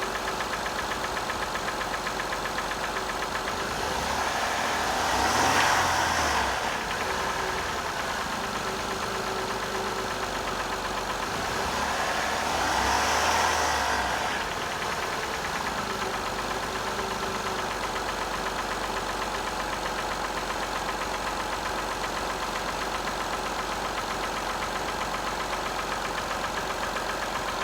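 2005 Acura TL's 3.2-litre V6 idling with a knocking noise, revved briefly about five seconds in and again about twelve seconds in.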